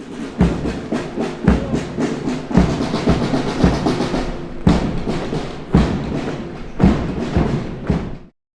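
A military brass band playing a march, with heavy bass-drum beats about once a second and a few quicker groups of three. The music cuts off abruptly near the end.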